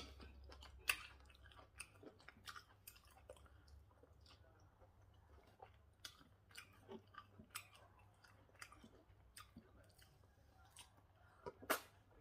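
Close-up eating sounds of fufu with banga soup: quiet chewing with irregular soft, wet mouth clicks. The loudest click comes near the end.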